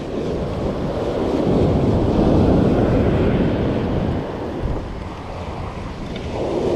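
Ocean surf breaking and washing up a sandy beach, mixed with wind buffeting the microphone. The wash swells about two seconds in, eases, and builds again near the end.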